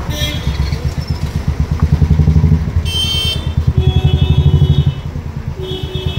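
A motorcycle engine running close by with a low, rapid throb, rising in level twice. Vehicle horns honk several times over it from about three seconds in.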